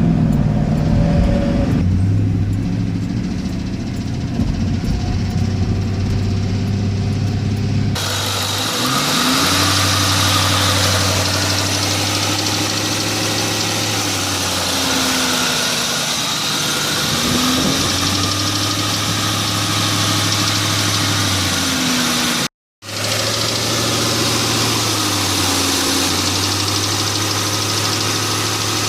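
2002 Ford Mustang GT's 4.6-litre V8 running, raised to a higher, held speed and let back down a few times, with a tick that the owner thinks may be a leaking exhaust manifold gasket. The sound cuts out for an instant about three-quarters of the way through.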